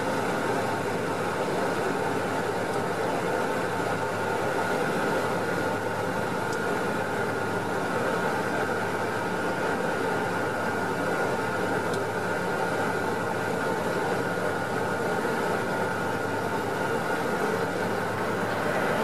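Steady drone of a small propeller airliner's engines and propellers heard from inside the cabin during the landing approach, a constant hum with a thin high whine running through it.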